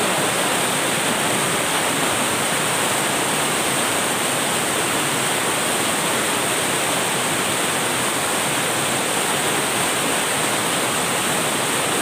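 Shallow rocky stream rushing over boulders in small rapids: a steady rush of water.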